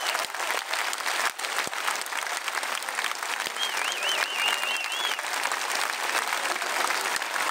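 Large concert audience applauding steadily, with one person whistling a wavering, warbling note about halfway through.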